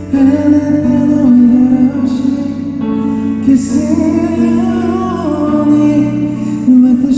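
A man singing a ballad live, with sustained keyboard chords behind the voice.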